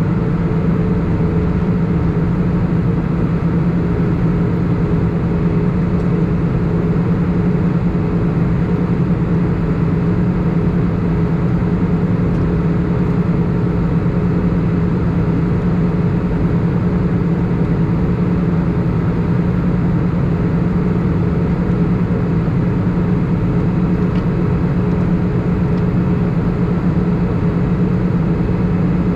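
Airbus A319 cabin noise in flight during the descent: a steady rush of jet engines and airflow with a strong, even low hum and a fainter higher tone, unchanging throughout.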